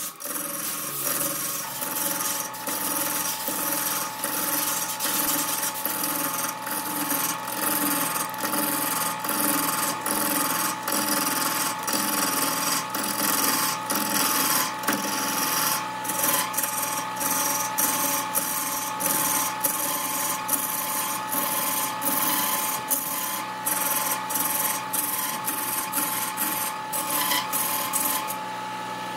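A turning tool cutting into a redwood blank spinning on a wood lathe: a continuous scraping, rasping cut over a steady tone from the machine.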